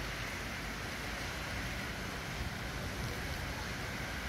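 Steady rain falling over the city, an even hiss.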